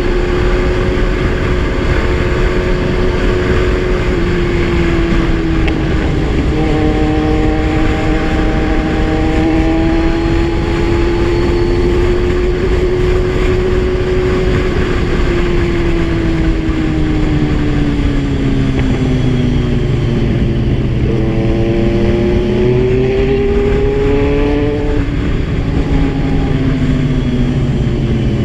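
Kawasaki Z1000 inline-four motorcycle engine running under way, holding steady revs, easing off about two-thirds of the way through, picking up again and easing off once more near the end, over a steady low rush of noise.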